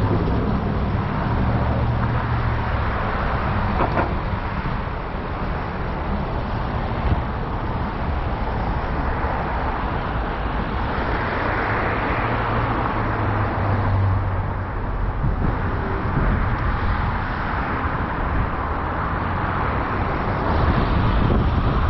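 A car driving, with steady engine and road noise that swells for a couple of seconds around the middle.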